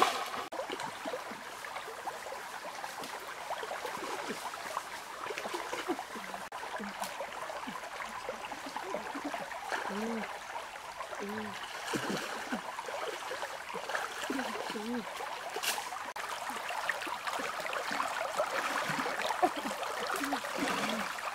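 Shallow stream water running and trickling, with soft water movement as people wade through it.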